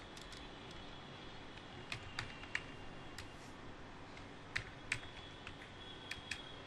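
Computer keyboard typing: separate key clicks in a few short runs with pauses between them.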